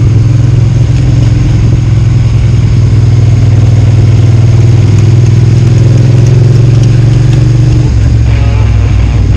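Motorcycle engine running at a steady note under way, heard close from the bike itself. About eight seconds in, the note drops lower as the bike slows.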